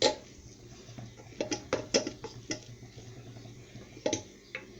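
About seven light knocks and clinks of a utensil against metal kitchenware, scattered irregularly, as boiled mallow greens are pressed down to drain. A faint low hum runs underneath.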